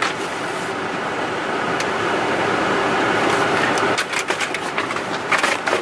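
Steady mechanical hum and rush of a running vehicle. A few short clicks and knocks come near the end as the dirt bike is shifted in the cargo area.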